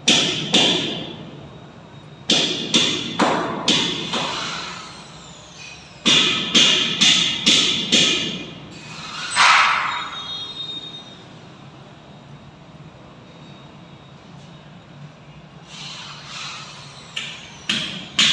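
Hammer blows on metal false-ceiling channel fittings overhead, sharp strikes with a metallic ring. They come in quick runs: a pair at the start, about five a couple of seconds in, about six more from around six seconds, then one longer metallic sound near ten seconds. After a quieter stretch a new run of strikes begins near the end.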